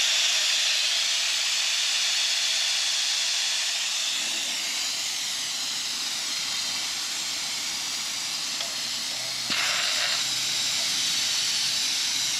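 Compressed-air vacuum brake bleeder hissing steadily as it draws on a disc brake caliper's bleed screw, a little louder from about nine and a half seconds in.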